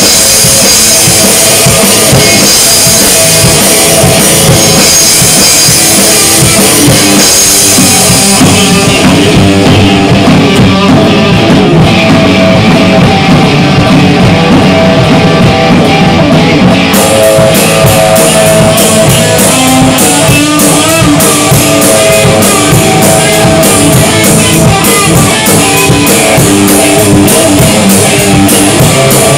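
Rock band playing, with drum kit and guitar. The cymbals drop out for several seconds in the middle of the passage, then the full kit comes back in with steady cymbal strokes.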